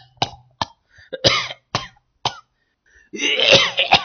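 A person coughing and clearing the throat in several short bursts, with a longer, louder one near the end.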